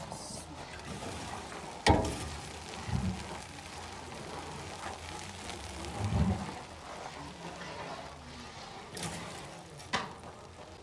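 Firewood being stacked on glowing embers under a steel cauldron: a sharp knock of wood about two seconds in, duller thumps a second and four seconds later, and small clicks near the end, over a steady faint hiss.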